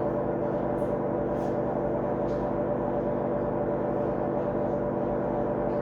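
A steady, unchanging drone of several held tones, with no rise or fall, and a few faint ticks over it.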